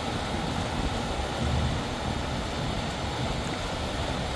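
Outdoor air-conditioner condenser unit running: a steady whoosh and hum of the condenser fan and compressor while it is being charged with refrigerant.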